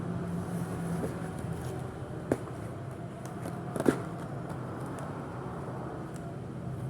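Steady low background rumble with a few light handling clicks; two sharp clicks stand out, one about two seconds in and a louder one near four seconds in.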